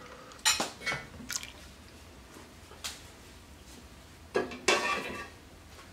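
Silicone spatula stirring rice and milk in a stainless-steel pot: a few sharp knocks and clinks against the pot with liquid sloshing, the loudest cluster about four and a half seconds in.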